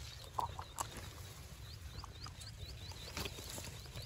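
Faint clicks and rustling of a fishing net being worked by hand off a caught fish. From about halfway through, a high chirping repeats rapidly, about five times a second.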